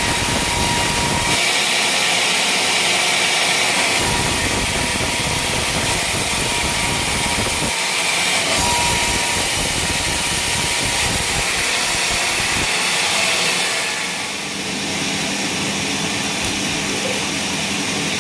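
Engine-driven sawmill saws running and cutting teak beams, a loud, steady, noisy whir with a faint steady whine, changing abruptly several times as different machines and cuts follow one another.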